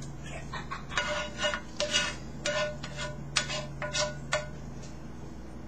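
A spatula scraping and stirring in a frying pan of melted butter and garlic, a run of quick strokes about two a second that stops about four and a half seconds in.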